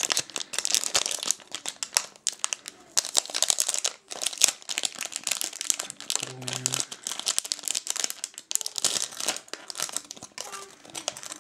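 Thin clear plastic packaging crinkling and rustling in irregular bursts as hands handle it and open it to take out an earring card.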